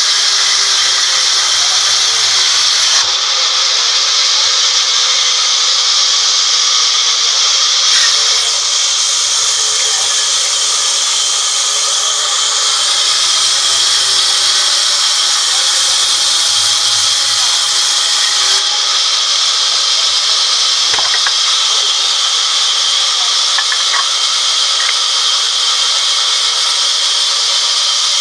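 Sawmill band saw cutting lengthwise through a teak plank: a loud, steady hissing whine of the blade in the wood, with a couple of faint knocks.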